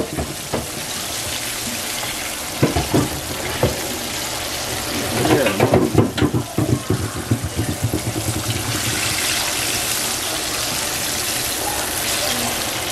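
Chicken wings deep-frying in a pan of hot oil: a steady sizzle, with the slotted spoon knocking and scraping in the pan as pieces are stirred, busiest about five to seven seconds in.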